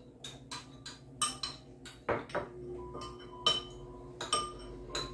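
A metal spoon stirring sauce in a small ceramic bowl, clinking against the bowl in quick, irregular taps, a few of them leaving a brief ring.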